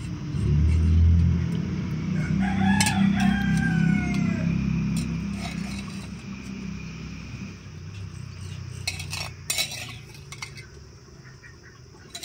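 A rooster crows once, a drawn-out falling cock-a-doodle-doo of about two seconds, over a low rumble that fades through the first half. Later a metal ladle clinks a few times against a metal plate and pot as fried chicken is slid into the dal.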